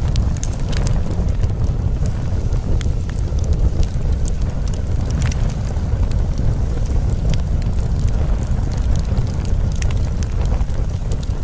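Steady low rumbling noise with scattered faint crackles and clicks, unbroken throughout: the masking sound bed of a subliminal audio track.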